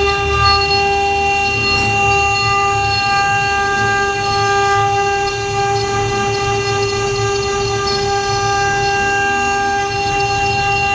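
CNC router spindle whining at one steady pitch while carving wood, over a low rumble.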